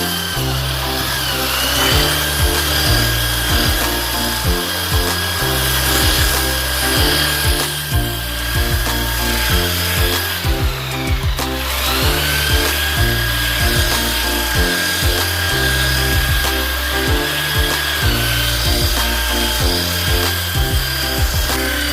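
Music with a steady bass beat over the high whine of an electric sander working wood. The whine sags briefly about a second in, and around ten seconds in it winds down and spins back up.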